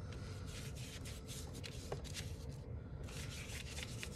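Large paintbrush stroking and scrubbing wet black watercolour across crumpled, crayon-waxed paper, working the paint into the creases: a faint run of quick, irregular scratchy strokes.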